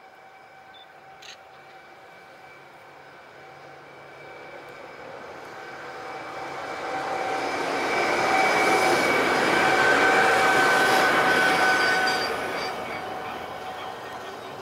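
Gornergrat Bahn electric rack-railway railcar approaching and passing close by. Its running noise builds to a peak about halfway through and then fades, with a steady whine running through it.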